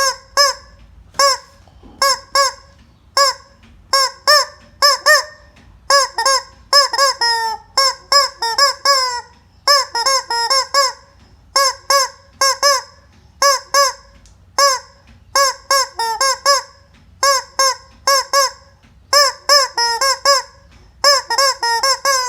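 Rubber squeaky chicken toy being squeezed over and over, giving loud, bending squawks, mostly in quick pairs about once a second, with faster runs now and then.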